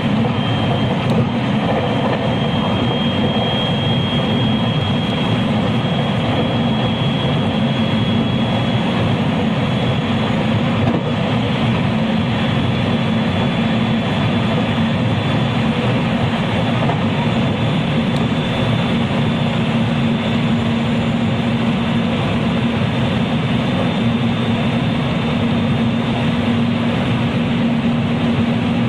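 JR West 223 series electric train heard from inside motor car KuMoHa 223-3016 while running between stations: steady rolling and wheel-on-rail noise with a thin, high whine held throughout.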